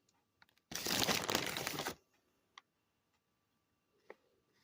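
Plastic packaging crinkling and rustling, handled in one burst of a little over a second, with a few faint ticks before and after.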